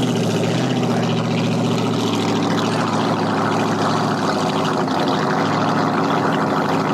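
Inboard V8 of a small flat-bottom race boat idling steadily through its short open exhaust pipes as the boat moves off the launch ramp.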